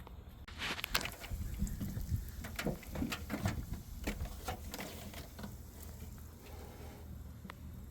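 Irregular clicks, taps and rustling of hands working on rubber vacuum hoses and a fitting in the engine bay, busiest in the first five seconds, over a steady low hum.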